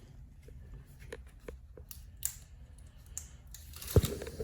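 Light plastic clicks and crackles from handling and pressing peel-and-stick PVC grid covers onto a drop-ceiling grid, with one sharper knock about four seconds in.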